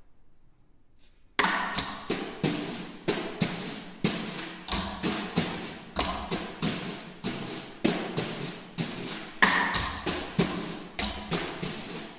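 Two snare drums struck with thin rattan shafts, starting suddenly about a second and a half in after near silence, then an uneven run of sharp strokes at about three a second, each ringing briefly.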